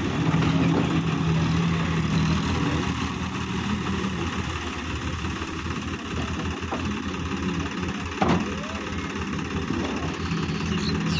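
Sonalika DI-50 tractor's diesel engine running steadily, strongest over the first three seconds and again near the end. A single short knock about eight seconds in.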